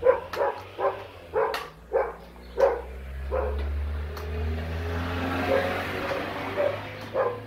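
A dog barking over and over in short barks, two or three a second. A vehicle passes on the road in the middle, its low rumble swelling and fading under the barks.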